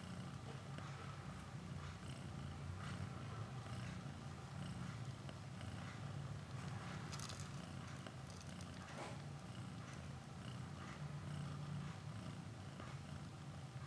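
Mother cat purring steadily as her newborn kittens nurse, a continuous low, fast-pulsing rumble.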